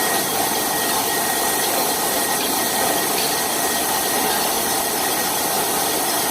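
Milling machine running steadily while cutting a keyway: an even, unchanging mechanical noise with a faint steady whine.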